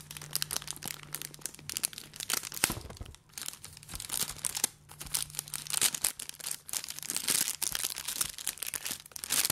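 Thin plastic packaging bag crinkling and crackling in irregular bursts as hands handle it and pull it open.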